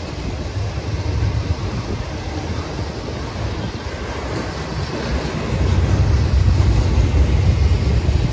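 Double-stack intermodal container train rolling past: a steady low rumble of steel wheels on rail, growing louder about two thirds of the way through.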